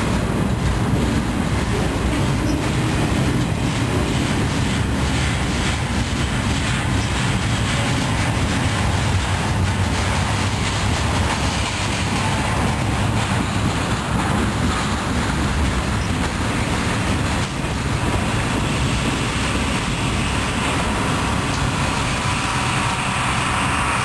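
Canadian Pacific double-stack intermodal freight train rolling past, its wheels on the rails making a steady rumble and clatter under the container well cars.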